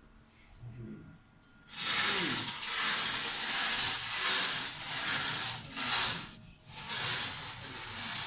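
Wire bingo cage cranked round, the balls tumbling inside it; the turning starts about two seconds in and runs on loud and continuous, with a couple of short breaks.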